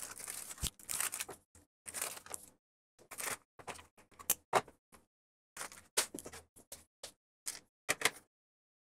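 Plastic rustling and crinkling as a coil of mains cable in its clear plastic wrapping is handled, in short irregular bursts with brief pauses, and a light knock under a second in.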